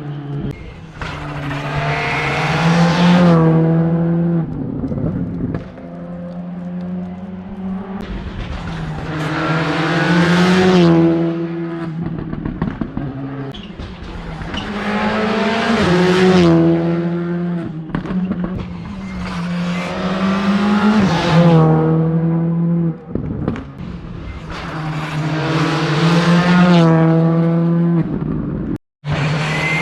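Rally cars at racing speed going past one after another on a closed special stage, each engine revving up and then dropping in pitch, about five passes. There is a brief total dropout near the end.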